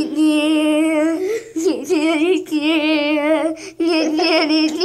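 A child singing or humming wordlessly in long, wavering high notes, with short breaks between them.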